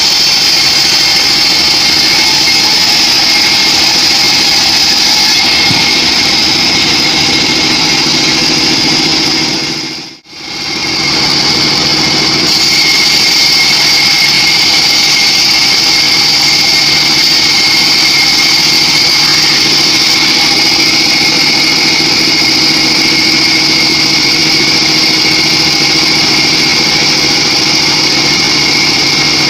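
Homemade band sawmill running steadily, its band saw blade cutting through a teak log with a steady high-pitched whine over the drive motor. The sound drops out briefly about ten seconds in, then resumes unchanged.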